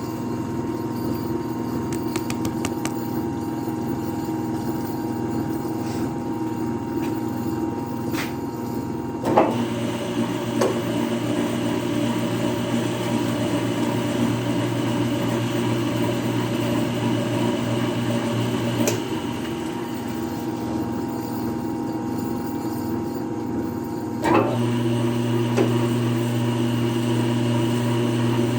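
A 3 hp electric motor running a planer through a belt and pulley, a steady mechanical hum. A knock comes about nine seconds in and another near the end, each followed by a change in the hum, which is deepest and strongest at the end.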